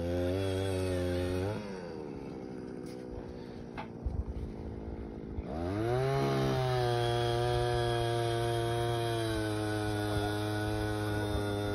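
A small engine revving high, dropping to a low idle about a second and a half in, then throttling back up about halfway through and holding a steady high speed.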